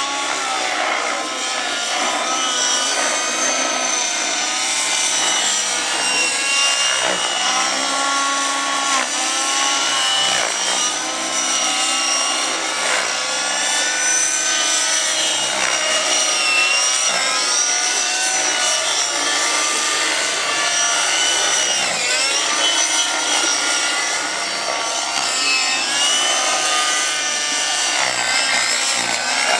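Several radio-controlled model helicopters flying overhead. Their engines and rotors whine, several pitches at once, each rising and falling continuously as the helicopters manoeuvre.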